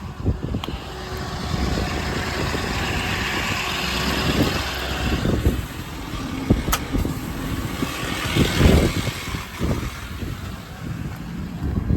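Ford 6.7 Power Stroke diesel engine running, with a hiss that swells and fades twice over it.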